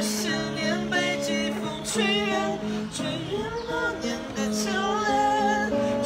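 Acoustic guitar accompanying a group of voices singing a song together.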